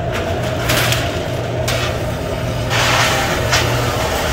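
Commercial walk-in rack oven running: a steady mechanical hum from its blower and burner, with a few short rushes of noise about one, two and three seconds in.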